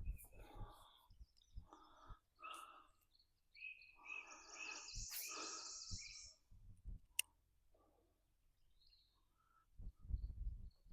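Birds chirping and singing over quiet outdoor ambience, the loudest song phrase about halfway through, with a brief low rumble near the end.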